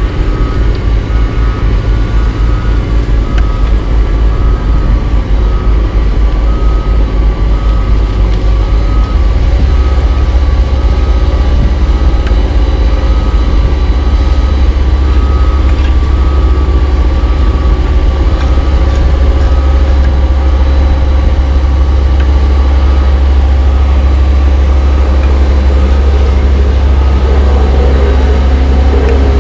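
Heavy diesel engines of an asphalt paver and roller running steadily. A backup alarm beeps in an even repeating pattern over them through the first half or so. The engine noise grows louder about nine seconds in.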